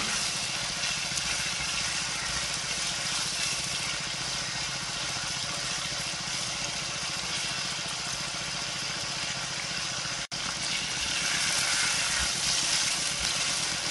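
Chopped chicken pieces sizzling steadily in hot oil in a wok as a spatula stirs them. The sizzle cuts out for an instant about ten seconds in.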